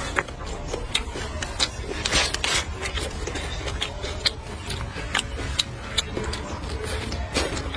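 Close-miked eating sounds: chewing with many irregular sharp clicks and wet smacks.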